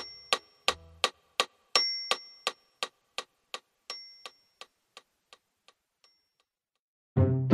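Background music: a clock-like ticking rhythm of about three ticks a second, with a few high chime dings, fading away over about six seconds. A new piece of music starts near the end.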